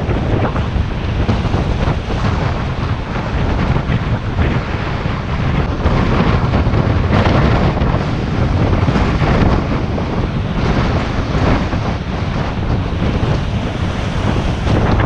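Strong gusty wind buffeting the microphone, rising and falling in loud gusts over the sound of surf.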